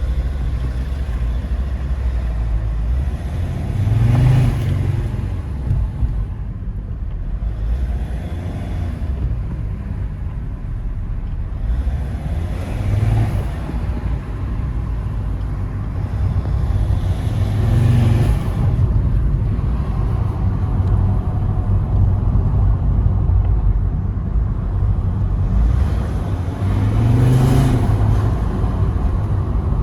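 Mercedes-Benz W203 C270 CDI's 2.7-litre five-cylinder turbodiesel running with a steady low rumble. It surges four times, spaced several seconds apart, as it is revved, and each surge brings up turbo whistle and intake rush through a K&N air filter, with the catalytic converter removed.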